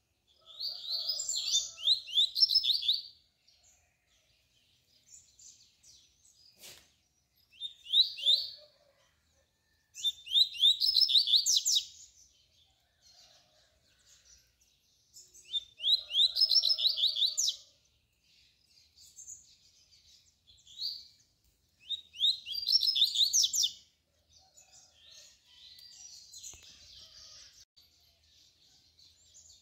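Double-collared seedeater (coleiro) singing its tui-tui song: about five loud, high-pitched phrases of two to three seconds each, with softer notes in between.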